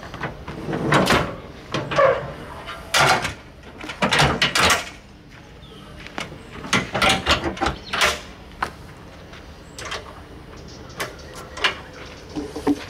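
Galvanized steel box trailer's tailgate being swung up and latched shut: a run of metal clanks and rattles, then a few lighter latch clicks near the end.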